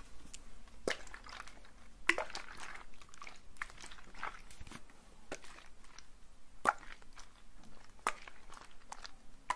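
Close-miked handling of ingredient bottles: scattered sharp taps and clicks, with a short rustle about two seconds in.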